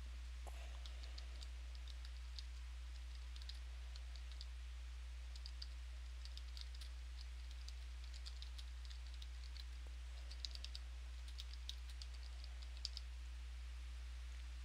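Typing on a computer keyboard: light key clicks in quick, irregular runs, over a steady low electrical hum.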